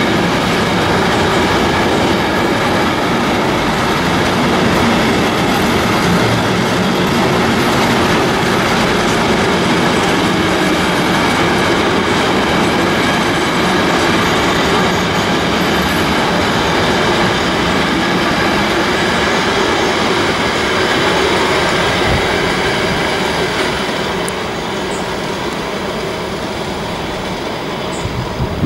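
A long freight train rolling past at speed on an electrified main line: a loud, steady rolling noise of wagon wheels on the rails. It grows quieter near the end as the train passes.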